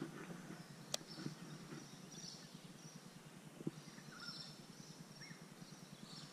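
Faint creekside ambience with faint high-pitched bird calls coming and going, a single sharp click about a second in, and a few lighter ticks.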